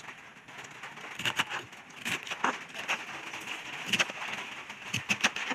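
Kitchen knife slicing cabbage on a wooden chopping board: about seven sharp, irregularly spaced knocks as the blade cuts through the leaves and strikes the board.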